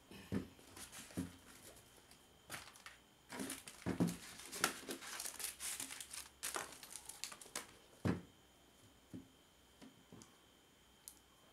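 A pair of boots and their plastic wrapping handled on a desk: irregular crinkling and rustling, busiest in the middle, with soft knocks as the boots are set down, the clearest about eight seconds in.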